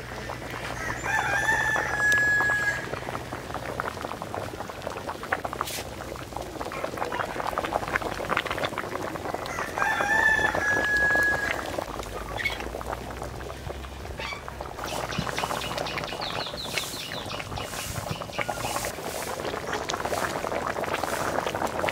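A domestic rooster crows twice, about nine seconds apart, each crow ending on a long held note, over a steady background crackle.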